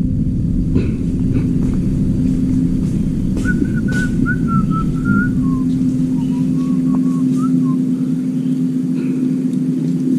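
A short whistled tune with stepped notes over a loud, steady low hum, with a few light clicks.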